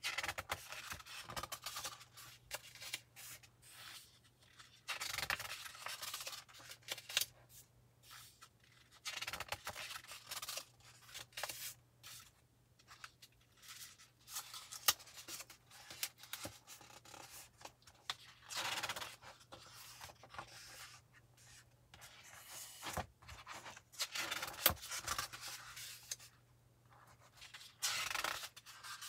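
Pages of a glossy paper magazine being turned and handled by hand: a paper swish and rustle every few seconds, with a few sharp ticks as pages snap over.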